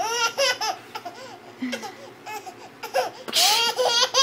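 A baby laughing in runs of quick, high-pitched laughs, with a breathy squeal and the loudest run near the end.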